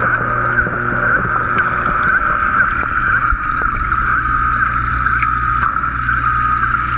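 Steady mechanical hum with a constant high whine that wavers a few times a second, heard underwater: the koi pond's water pump and circulation running.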